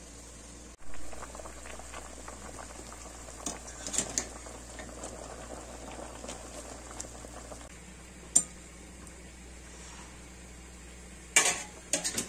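Water bubbling at a boil in a stainless steel pot of cauliflower florets, with scattered light clicks. A single sharp click follows, and a quick cluster of loud knocks comes near the end.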